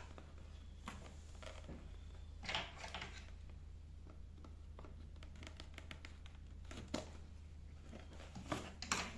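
Echo Dot packaging being handled and opened: scattered clicks and short rustling, crinkling sounds, loudest a few seconds in and near the end, over a steady low hum.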